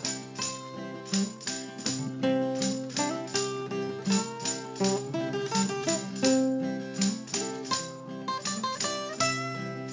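Background music: plucked acoustic guitar with strummed chords and a steady beat.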